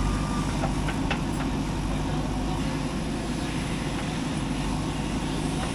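Heavy diesel engine running steadily, with a few faint clicks in the first second or so.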